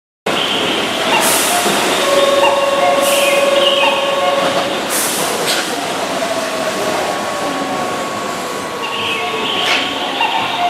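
Keihan 5000 series five-door electric train running on the rails with a steady whine over the rumble, cut by about four short hissing bursts.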